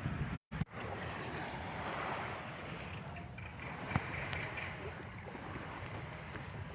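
Wind buffeting the microphone over the steady wash of lake waves. The sound drops out briefly about half a second in, and there are a couple of sharp clicks around four seconds in.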